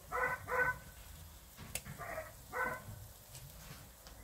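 A dog barking: two quick barks, then two more about two seconds later, with a single sharp click between the pairs.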